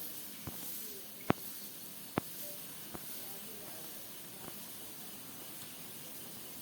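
Steady hiss of outdoor background noise, with two sharp clicks a little under a second apart near the start and a few fainter ticks.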